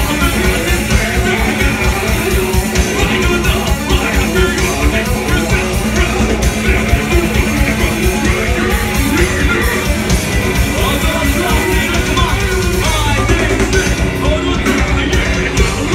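Metalcore band playing live: distorted electric guitars, bass and fast drums, with a singer on the microphone, loud and continuous.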